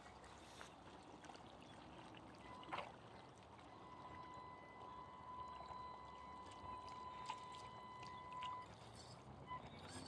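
Faint lapping of lake water in gravel shallows, with a few small clicks. For a few seconds in the middle there is a thin, steady high whine.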